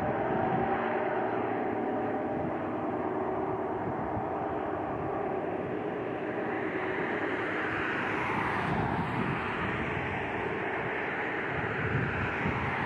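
Jet airliner's engines: a steady rush of jet noise whose tone sweeps slowly as the aircraft moves past.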